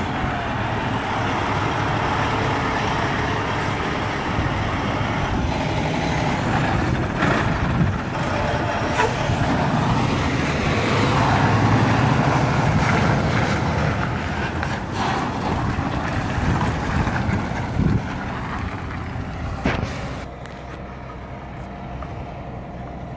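Diesel semi truck pulling a bottom-dump trailer driving slowly past and turning, its engine running loudest about halfway through and dropping away over the last few seconds, with a few short sharp noises along the way.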